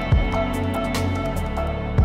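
Background electronic dance music with a steady kick-drum beat and ticking hi-hats.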